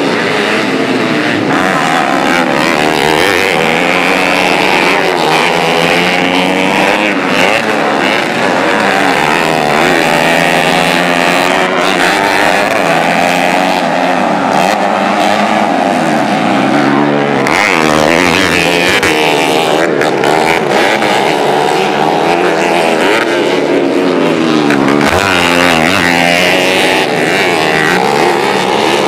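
Several 110cc motocross bikes racing on a dirt track, their engines revving up and down in pitch as the riders accelerate, shift and ease off through the corners.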